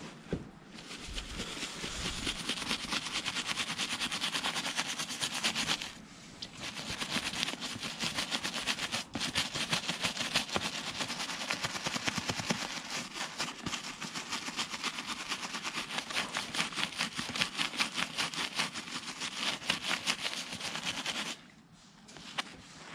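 Aerosol can of black spray paint spraying through a stencil onto a wool bale: a hiss with a rapid sputtering rattle, in two long bursts with a short break about six seconds in. It stops about a second and a half before the end.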